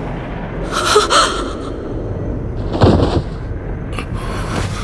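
A person's strained gasps for breath, with a dull impact about three seconds in.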